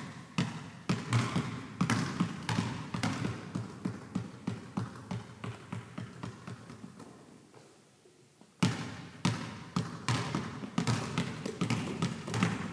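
Basketball dribbled on a gym's hardwood floor, about two bounces a second, each ringing in the gym's echo. The bounces grow fainter and stop for a second or so past the middle, then start again with a sudden louder bounce.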